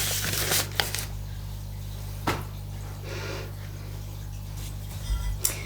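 Steady low electrical hum, with a few small clicks and soft breaths as the speaker catches her breath.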